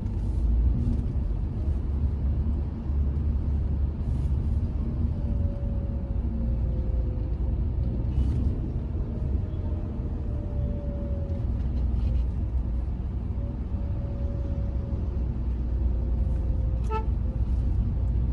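Hyundai i20 driving along, its road and engine noise a steady low rumble with a faint hum that drifts slightly in pitch. A brief car horn toot sounds near the end.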